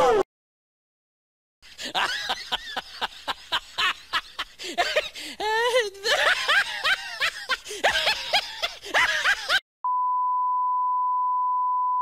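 About eight seconds of quick, choppy, voice-like sounds, then a steady, unchanging test-tone beep that starts near the end: the 1 kHz reference tone that goes with TV colour bars.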